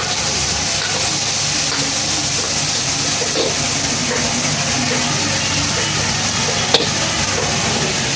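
Food sizzling and frying in a carbon-steel wok over a gas burner while a metal ladle stirs it, a steady hiss throughout. A single sharp knock, the ladle against the wok, comes about two-thirds of the way through.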